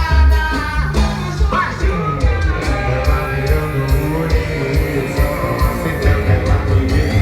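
Loud recorded music with singing, played through a car sound system (paredão), with a heavy, pulsing bass beat.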